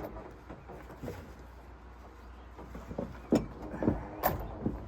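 Several sharp knocks and clunks of gear being handled, over a low steady rumble.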